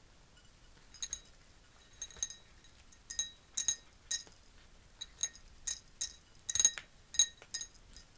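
A cat eating dry kibble from a small ceramic bowl: irregular sharp clinks as its teeth and the kibble knock the bowl, which rings briefly each time, about one or two a second, the loudest about six and a half seconds in.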